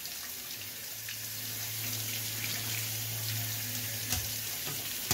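Faucet water running onto a plastic exhaust-fan grille in a bathroom sink while a hand rubs it clean. A low steady hum sits under the water from about half a second in until near the end.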